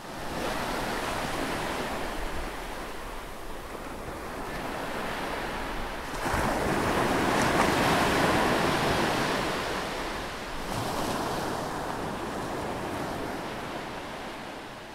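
Ocean waves washing on a shore, a steady rush of surf that swells louder about six seconds in and slowly eases off.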